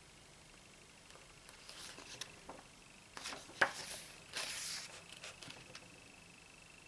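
Pages of a photobook being turned and handled: a few soft paper rustles and light taps, with a sharper tap about three and a half seconds in.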